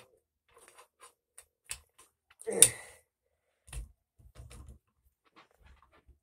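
Scattered small clicks, taps and handling bumps of metal gun parts and a hand tool as a part is worked onto a firearm, with one louder, sharp clack about two and a half seconds in.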